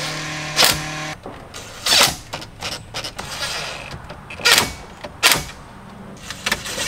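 Cordless impact driver screwing the head unit into the dash: one run that stops about a second in, then several short trigger bursts as the screws are snugged down.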